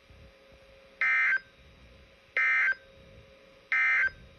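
Emergency Alert System end-of-message code: three short, identical bursts of digital data tones about a second apart, signalling that the alert message is over.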